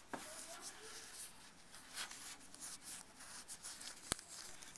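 A cloth shop towel rubbing over a fuel injector body: faint scratchy wiping with small handling ticks, and one sharp click about four seconds in.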